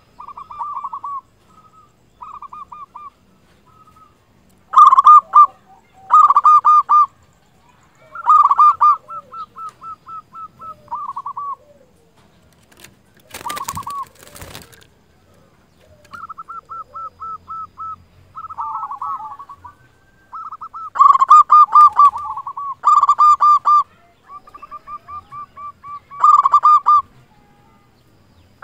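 Zebra dove (local perkutut) singing: repeated phrases of quick, evenly spaced cooing notes, some phrases soft and several much louder. A short noisy burst comes about halfway through.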